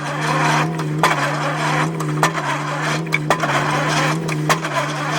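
An excavator-mounted pile-driving hammer striking a pile about once a second, each blow a sharp knock, over the steady drone of the excavator's diesel engine.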